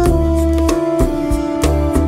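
Background music with a steady drum beat, a sustained bass and held melodic notes.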